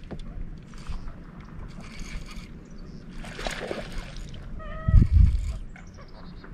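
A hooked fish splashing at the water's surface while it is reeled in on a bent rod. A short high squeak comes just before a dull low thump about five seconds in.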